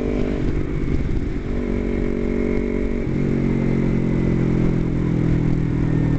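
Kawasaki Ninja 250R's parallel-twin engine under way and shifting up: its note drops about half a second in and again about three seconds in, then runs on steady in the higher gear.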